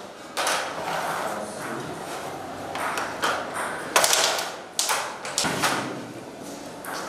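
Sharp clicks and knocks of game pieces on wooden boards: the carrom striker hitting coins, and chess pieces being moved. They come irregularly, one every half second to a second, over a steady background of room noise.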